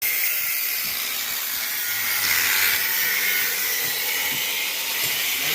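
Electric arc welding: a steady sizzling hiss from the welding arc, keeping an even level throughout.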